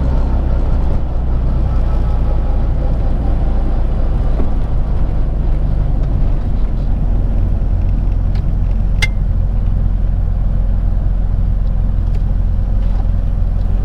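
Classic Mini's A-series four-cylinder engine, fitted with a Weber 40 carburettor and headers, running steadily as a low, even rumble heard inside the cabin. A single short click comes about nine seconds in.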